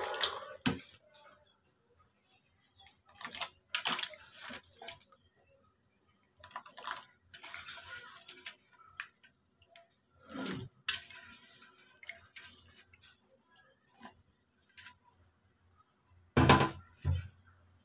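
Cut moringa drumstick pieces dropped into a pot of thin lentil dal, making several separate splashes and plops in the liquid. The loudest comes near the end.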